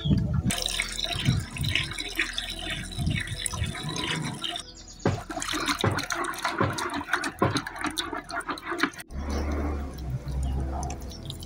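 A wooden stirring stick churning a watery mash of ground roots in an aluminium pot: wet sloshing and splashing with many small clicks. About nine seconds in it cuts off suddenly, leaving a fainter sound over a low hum.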